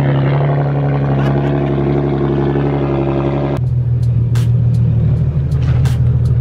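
Infiniti G37's 3.7-litre V6 idling through its aftermarket exhaust on a cold start, with exhaust vapour pouring from the tips. About three and a half seconds in, the sound drops abruptly to a lower, deeper idle, with a few sharp clicks after.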